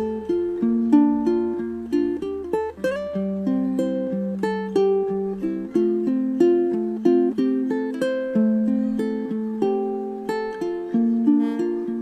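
A ukulele played solo: a melody picked note by note, several notes a second. It is recorded through a Comica CVM-VS08 clip-on microphone about a foot away.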